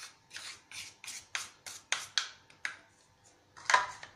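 Plastic spoon scraping and scooping flour out of a plastic bowl in about a dozen quick scraping strokes, with a louder one near the end.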